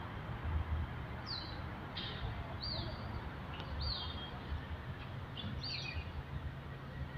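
Small birds chirping: a series of short, high, falling chirps, roughly one a second, over a low, steady outdoor rumble.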